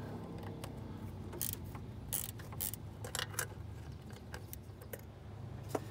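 A short stubby ratchet with an 8 mm socket clicking in short, irregular runs as the valve cover bolts are loosened.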